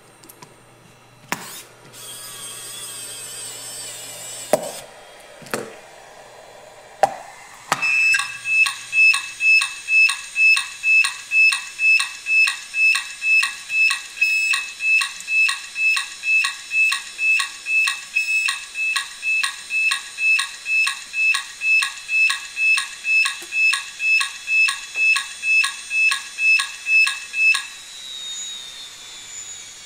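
Maxtor IDE hard drive running with its lid off: a high spindle whine and a few clicks as the cover comes off, then, about eight seconds in, a loud rhythmic pulsing buzz about twice a second as the head arm keeps seeking, the drive's reaction to being opened while spinning. Near the end the pulsing stops and the platters' whine falls in pitch as the drive is powered off and spins down.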